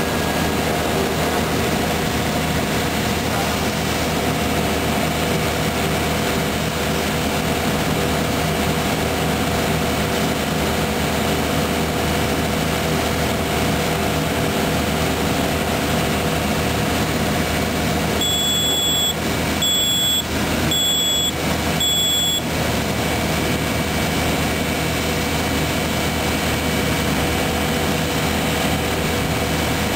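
Sany SR150C rotary piling rig's diesel engine running steadily. About two-thirds of the way through, an electronic warning beeper sounds four short beeps about a second apart.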